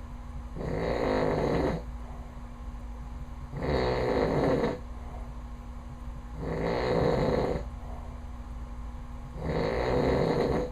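A man snoring loudly in his sleep: four snores about three seconds apart, each lasting about a second.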